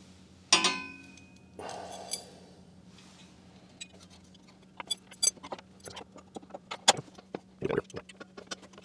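Steel block-off plate clanking once, about half a second in, with a brief metallic ring, then a short scrape. After that comes a run of light metal clicks and taps, with one duller knock near the end, as a long bolt and washers are worked through the plate and the mower deck's mounting brackets.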